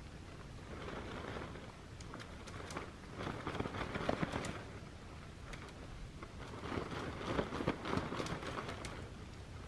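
Irregular rustling and crinkling with scattered sharp clicks, like gear or packaging being handled, in several uneven swells.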